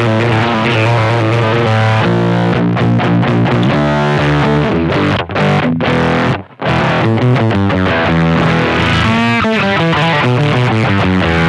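Electric guitar played through a BC108 silicon-transistor Fuzz Face clone pedal: distorted fuzz riffs and chords, with two brief breaks in the playing about five and six and a half seconds in. The fuzz circuit is running after its fault was fixed by replacing a resistor with a 10K trimmer set to minimum resistance.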